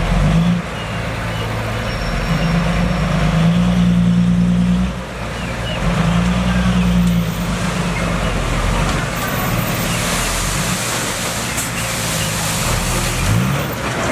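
Diesel engine of heavy earthmoving machinery running under load, its revs swelling and easing. The pitch rises briefly near the end.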